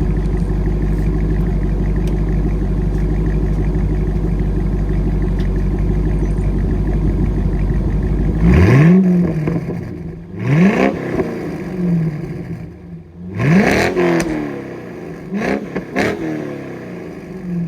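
2000 Chevrolet Corvette's 5.7-litre LS1 V8 through a Borla ATAK axle-back and Borla X-pipe exhaust, idling steadily, then revved four times about eight seconds in. Each blip rises quickly and falls back toward idle, the third reaching highest.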